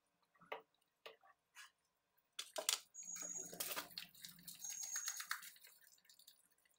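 Thick curry gravy bubbling in a pan on the stove: a few single pops, then about three seconds of dense popping and spluttering in the middle that fades out near the end.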